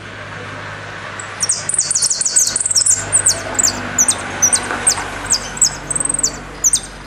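Argentine jilguero (goldfinch) singing: from about a second in, a fast run of sharp, high notes and short clear whistles, the 'golpe' and 'pitadas' of its song. A steady low hum lies underneath.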